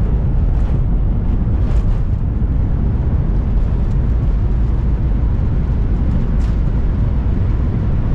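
Loud, steady rumble inside a jet airliner's cabin during the landing rollout, just after touchdown with the wing spoilers raised: engine noise and the wheels running on the runway, easing slightly near the end.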